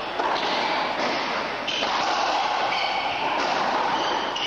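Racquetball rally: the ball popping off racquets and walls, with shoes squeaking on the court floor, over a steady hiss of hall noise.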